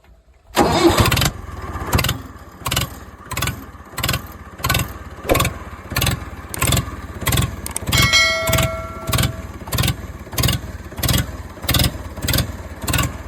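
Engine-like sound that starts with a short burst and then chugs in an even beat, about one and a half knocks a second. A short steady horn-like tone sounds about eight seconds in.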